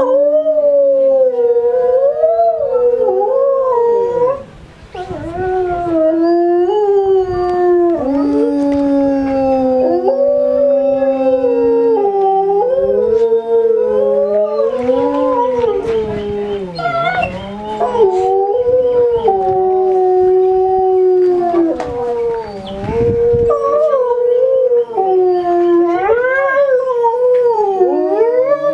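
Grey wolves howling in chorus: several long overlapping howls at different pitches, each held and then gliding up or down, with a brief break about four seconds in.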